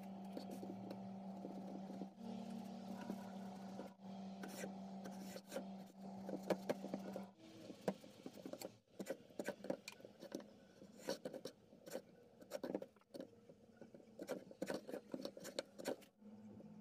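Kitchen knife cutting and scraping orange peel on a wooden cutting board, with many short taps and clicks, thickest in the second half. A steady low hum runs under the first half and then stops.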